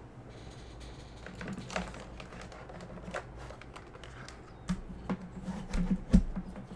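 Typing on a vintage mechanical keyboard with tactile Alps switches: separate keystroke clicks and bottom-out clacks, sparse at first and then coming quicker and louder in the second half.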